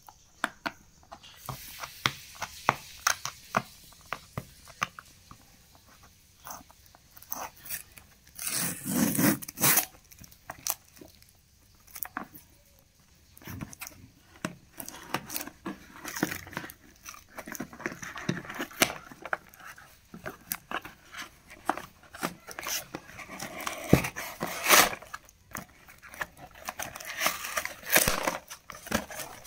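Fingernails scratching and picking at packing tape on a cardboard shipping box, with scattered clicks and rustling. A few louder bursts of tearing come as the tape and cardboard flaps are pulled open, the longest about 9 seconds in and another near the end.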